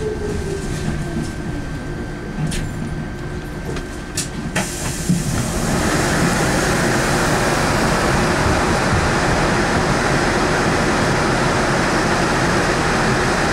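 Electric bus's traction motor whine gliding down in pitch as the bus slows into a stop, with a few clicks. About five seconds in, a loud, steady rushing noise sets in and holds.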